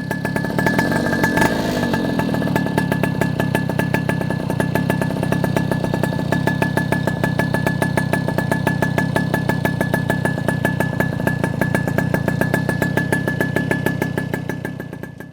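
Puch Maxi moped's single-cylinder two-stroke engine, breathing through a Tecno Snake expansion exhaust, running steadily at high revs with a thin steady high tone through it. It fades up at the start and fades out at the end.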